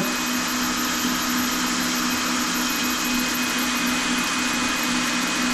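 Small electric drill running steadily under pressure, its bit boring into ceramic wall tile; an even motor whine with a grinding hiss that does not let up.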